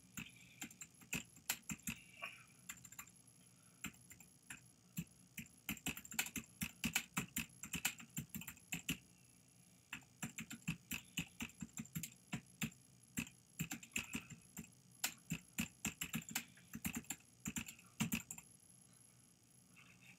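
Typing on a computer keyboard: quick runs of key clicks with short pauses between them.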